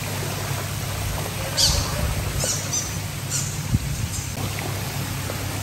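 Steady spray of pool water fountains with a low hum underneath. Four short high chirps come between about one and a half and four seconds in, and a single soft knock just before the last one.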